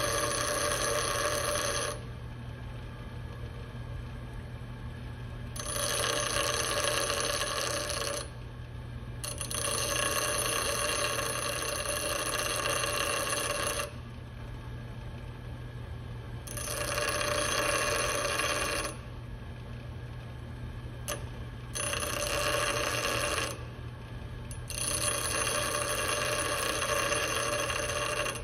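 Bench grinder motor running with a steady hum while a steel flathead screwdriver tip is pressed to the grinding wheel in six passes of one to four seconds each, the grinding stopping between passes. The tip is being ground to a flat end with concave sides so it seats in a screw slot.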